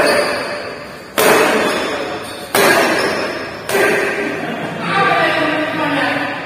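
Badminton rackets striking a shuttlecock during a rally: three sharp hits about a second apart, each echoing on in a large hall. Voices call out near the end.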